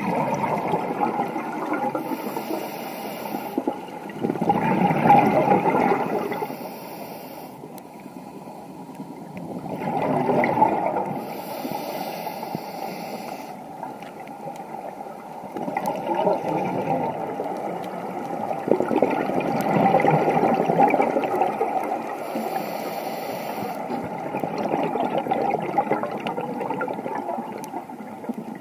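Scuba diver breathing through a regulator, heard underwater: bursts of exhaled bubbles every several seconds, with a short hiss of inhaling between some of them.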